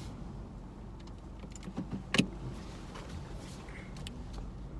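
Car interior noise: the steady low hum of the car's engine and road, with a few light clicks and one sharper click about two seconds in.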